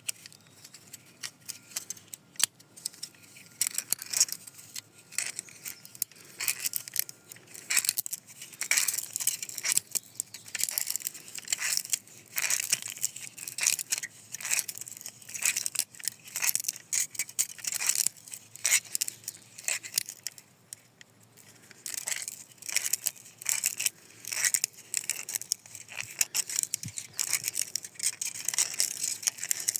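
Steel recoil starter spring of a Husqvarna 372 chainsaw being worked by hand into its starter housing: irregular metallic clicks, scrapes and rattles, with a brief lull about twenty seconds in.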